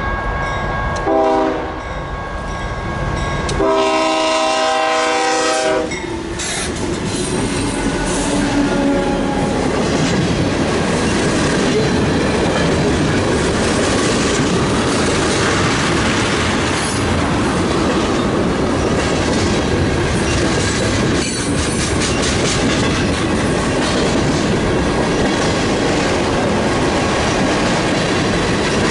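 Diesel freight locomotive's air horn sounding a short blast about a second in, then a longer blast of about two seconds. The train then rolls past with steady, loud wheel-and-rail noise and a few clicks.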